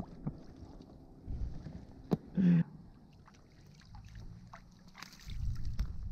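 Low wind rumble on the microphone and light water sounds around the kayak hulls, with a single sharp click about two seconds in; the rumble swells near the end.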